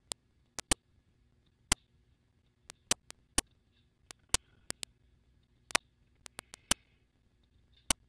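Sharp, irregular clicks and taps, two or three a second, as a wooden stir stick knocks and scrapes against the rim of a plastic mixing cup while clear epoxy resin is poured out of it.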